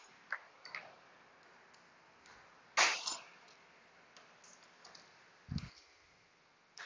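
Scattered clicks and taps of hand tools as a Torx bit is tried on a throttle body screw, with one louder click just under three seconds in and a dull knock about five and a half seconds in.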